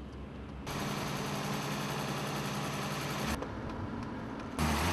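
Car engine running steadily for about three seconds, starting under a second in and then dropping away; a louder sound comes in just before the end.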